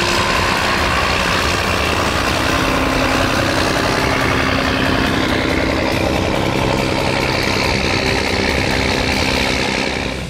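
John Deere 8100 tractor's six-cylinder diesel engine running steadily, dipping slightly in level near the end.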